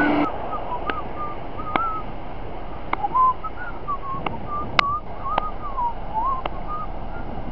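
A person whistling a wandering, wavering tune, with a sharp click about once a second.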